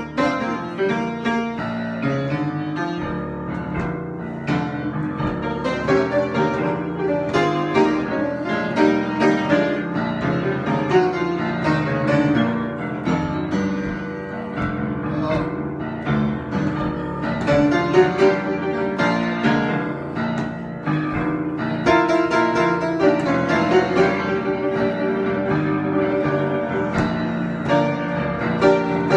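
Solo piano improvisation, with many notes played at a steady, moderate level.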